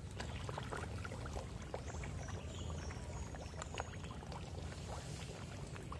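Koi crowding and gulping at the pond surface: many small, irregular splashes and slaps of water over a steady low rumble.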